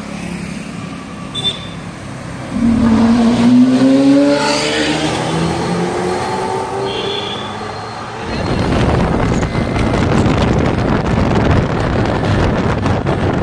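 Lamborghini Aventador V12 with a titanium Armytrix exhaust accelerating hard, its pitch climbing, then dropping at a gear change and climbing again. After about eight seconds a loud, steady rushing noise covers it.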